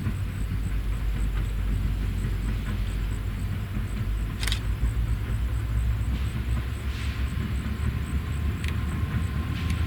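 Diesel train rumbling steadily past, with a few sharp clicks about halfway through and near the end.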